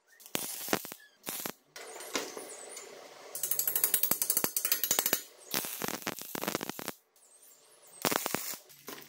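Metalwork on a square steel-tube frame in short separate bursts: welding crackle, and a dense run of rapid metallic ticking in the middle, with brief metal taps and scrapes around it.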